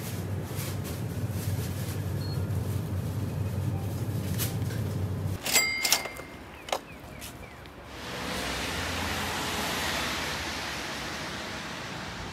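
A low steady hum in a shop, then a few sharp clicks, then outdoor street noise: a hiss of traffic on wet roads that swells and slowly fades.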